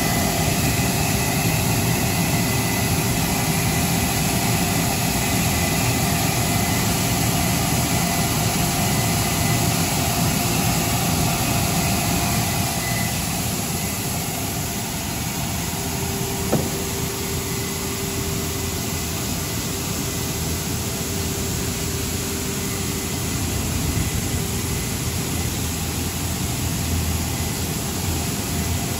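A 3-in-1 shredder-type plastic film recycling and pelletizing line running: a steady mechanical din with a few steady hum tones, and one sharp click about sixteen seconds in.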